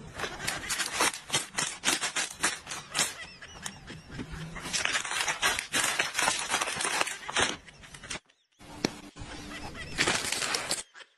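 Plastic snack bag crinkled and rustled by hand: a dense, irregular crackle that breaks off briefly just after eight seconds in and stops near the end.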